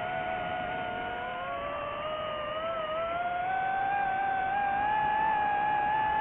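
DJI FPV drone's motors and propellers whining in flight, a cluster of several close pitches that drift apart and together. The pitch climbs over the second half, with the sound getting somewhat louder as it does.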